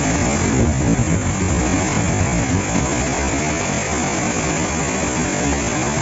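Steady rushing of a 20-metre waterfall, its water falling onto rock in a loud, even noise with no pitch.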